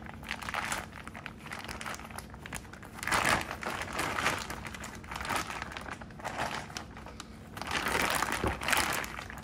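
Plastic bag crinkling in gloved hands as thick jerk seasoning paste is squeezed and shaken out of it, in several rustling bursts, the loudest about three seconds in and near the end.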